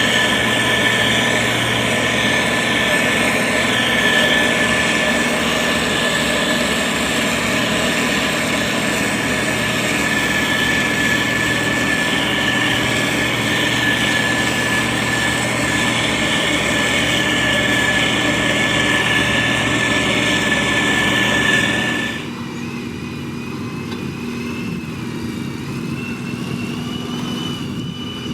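Heavy road-construction machinery running steadily, an engine with a high, steady whine over it. About 22 seconds in, the sound drops abruptly to a quieter engine with a faint wavering whine.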